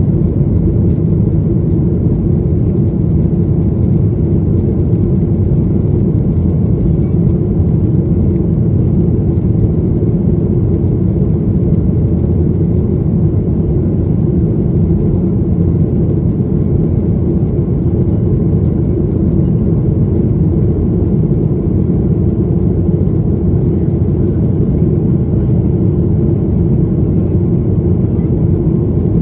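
Cabin noise inside a Boeing 737-800 climbing after takeoff: its CFM56-7B jet engines and the airflow make a steady low roar with a faint hum in it.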